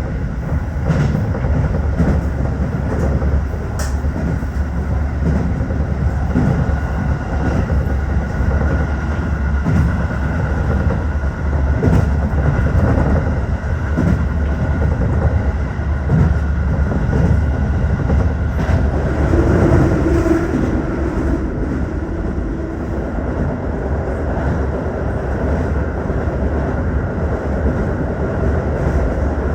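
Tokyo Metro 15000 series electric train running at speed: a steady rumble of wheels on rail, with a faint steady tone above it and a lower tone that shows briefly about twenty seconds in.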